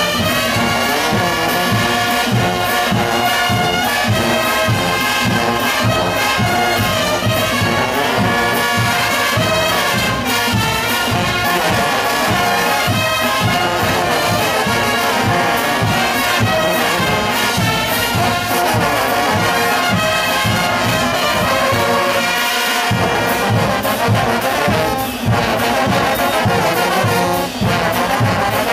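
Large Bolivian brass band playing in full: trumpets, trombones, euphoniums and tubas together over a steady beat. The low end drops out for a moment about two-thirds of the way through.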